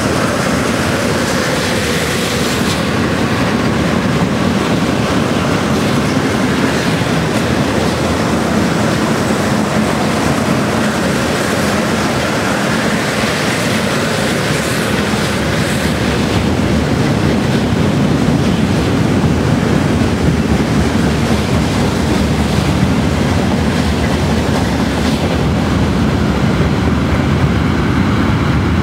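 Loaded freight wagons (tank cars, then log wagons) rolling past on the rails: a steady rumble and clatter of wheels on track, with faint wheel squeals now and then.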